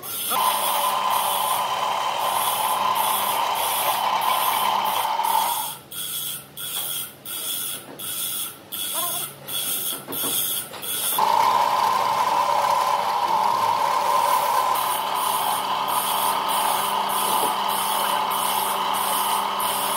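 Drill press running, its Forstner bit boring holes into a wooden block, with a steady motor whine and low hum. For about five seconds in the middle the steady whine drops out and the sound pulses unevenly, about twice a second, before the whine comes back.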